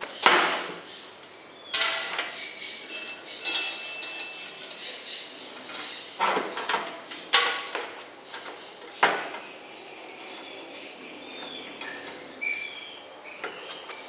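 Steel parts clanking and ringing on a steel frame and bench as a roller chain and a drill with a sprocket bracket are fitted to the chipper. There are about six sharp metallic clanks in the first nine seconds, then lighter clicks, rattles and short scrapes.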